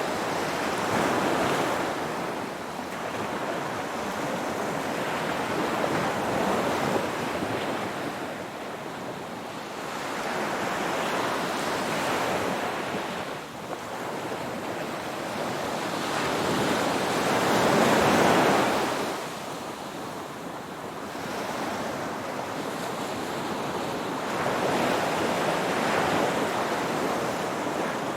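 Ocean waves breaking and washing on the shore in slow swells, a surge every five to seven seconds, the biggest about two-thirds of the way through.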